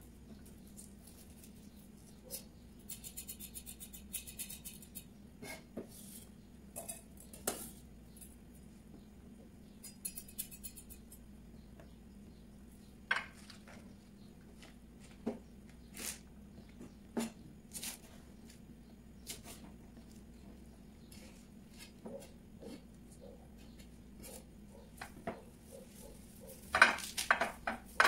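Chef's knife cutting vegetables on a plastic cutting board: scattered knocks of the blade on the board, two short runs of rapid taps, and a cluster of louder knocks and clatter near the end.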